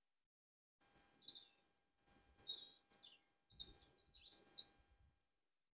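Faint birds chirping: scattered short, high calls over a few seconds, with near silence around them.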